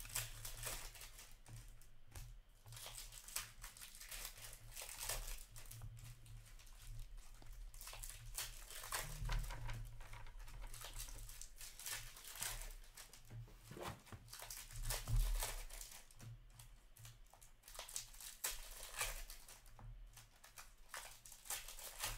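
Foil Upper Deck hockey card packs crinkling and tearing as they are opened and handled by hand, in irregular bursts of crackle.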